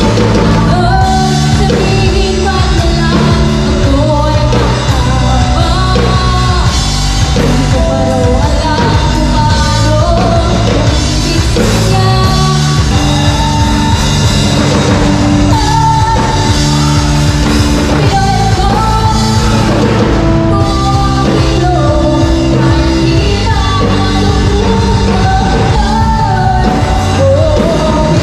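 Live rock band playing a song: a lead singer over electric guitars, bass, keyboard and a drum kit, heard through the stage's PA speakers.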